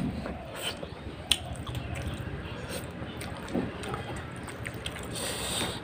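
Close-up wet chewing of a mouthful of rice and fish curry, with smacks and sharp clicks, the sharpest about a second in. Near the end, fingers squish and mix rice and curry on a steel plate.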